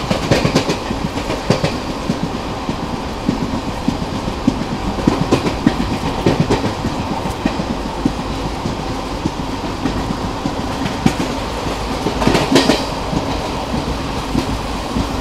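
Sleeper coach of a passenger train running along the track: a steady rumble of wheels on rail, broken by clusters of clickety-clack clicks as the wheel sets cross rail joints. The loudest cluster comes near the end.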